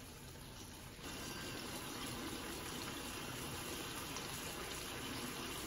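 Water running steadily from a tap, growing louder about a second in as the flow is turned up.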